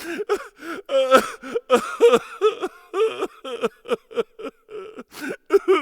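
Dishes being washed by hand: a quick run of short clinks and squeaky rubbing sounds from plates and cutlery, several a second.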